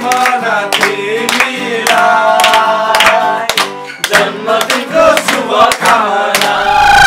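Several men singing together to an acoustic guitar, with hand claps.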